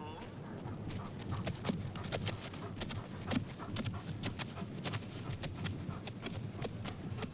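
Horse walking, its hooves clip-clopping in a quick, irregular run of knocks on hard ground.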